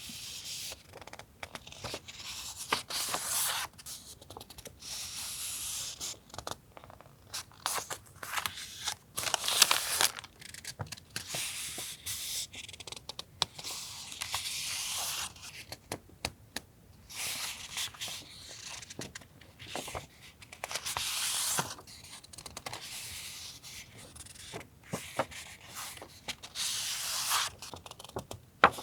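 Paper being handled at close range: repeated stretches of rustling and crinkling, each a second or two long, broken by small sharp clicks and taps.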